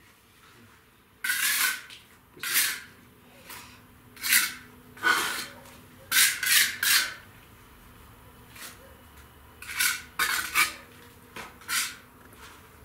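A steel mason's trowel scraping and clinking against mortar and brick in about ten short, irregular strokes with pauses between.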